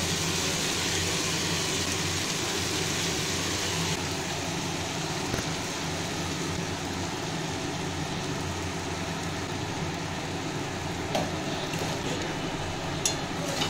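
Steady low hum and soft hiss of a gas stove burner heating a steel wok, with faint sizzling from the food, and a few light clicks near the end.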